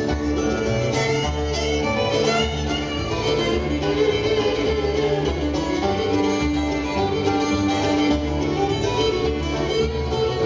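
Bluegrass band playing an instrumental break with no singing: the fiddle leads over acoustic guitar, upright bass, mandolin and five-string banjo, with a steady bass beat.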